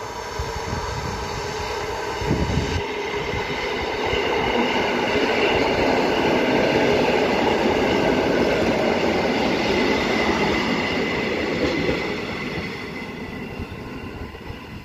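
A train passing by, its running noise building to a peak around the middle and fading away toward the end, with a few steady tones riding over it.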